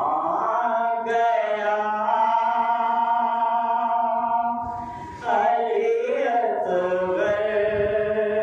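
A man's voice singing a slow, unaccompanied devotional chant into a microphone and amplifier, in long held notes. A short breath about five seconds in splits it into two phrases.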